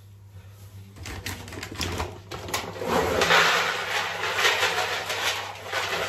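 Cat litter being raked and poured in a litter tray: a dense run of rustling, rattling granules with many small clicks and scrapes. It starts about a second in and is loudest through the middle.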